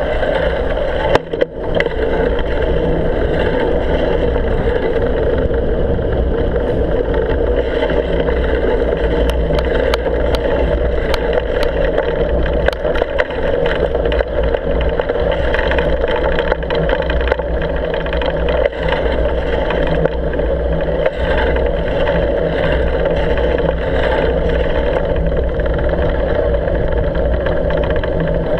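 Steady drone of riding noise picked up by a camera mounted on the handlebars while travelling along a snowy road, with a few sharp clicks about ten to thirteen seconds in.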